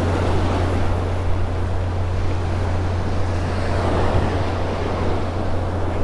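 Small waves breaking and washing up a sandy beach in a steady rush of surf, with a low wind rumble on the microphone.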